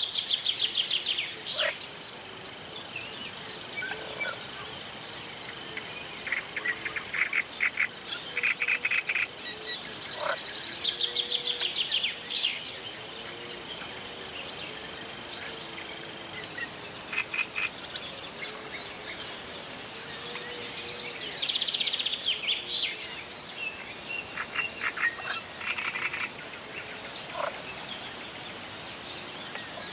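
Several wild birds singing in repeated phrases, with fast trills at about 0, 10 and 21 seconds and a steady high thin note held through the first half. A faint low, repeated warbling call runs underneath.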